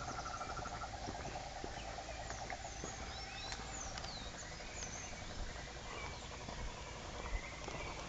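Forest ambience: a rapid pulsing trill runs through the first half and fades, high sliding bird chirps come in the middle, and a single thump sounds near the end.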